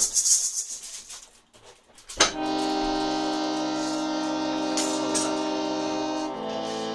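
Electronic keyboard holding a sustained, organ-like chord that starts sharply about two seconds in and changes to a new chord near the end. Before it there is a brief rattle of quick clicks.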